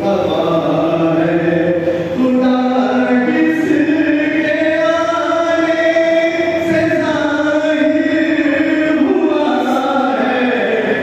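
Devotional chanting, sung in long held notes that step from pitch to pitch, with no pauses.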